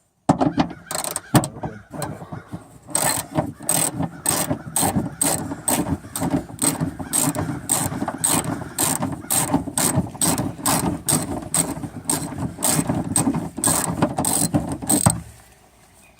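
Socket ratchet clicking steadily as a 10 mm spoiler nut is wound off under the trunk lid, a sharp click about twice a second over a continuous rasp; it stops near the end.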